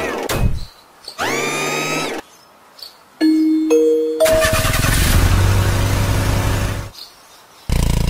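Cartoon sound effects. A pitched tone slides up and holds, then stops, twice. Three short tones follow, each a step higher, and then about three seconds of engine-like rumbling.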